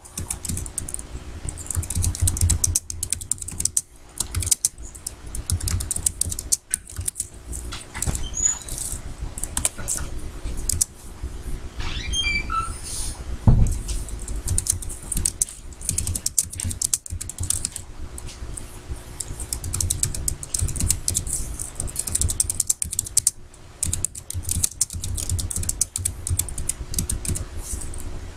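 Typing on a computer keyboard, irregular key clicks going on and off throughout. About halfway through there is a brief run of high chirps, then a single thump, the loudest sound.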